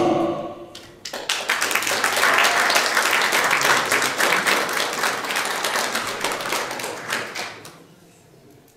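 The last sung note of an a cappella choir dies away, then an audience applauds for several seconds. The clapping thins and fades out about two seconds before the end.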